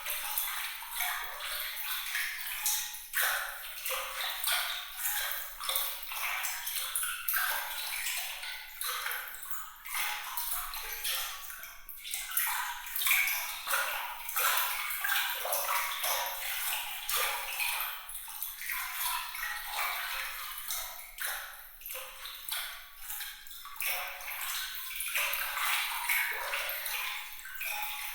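Water trickling and splashing in a continuous bright, glittering patter, thin and high with no low rumble.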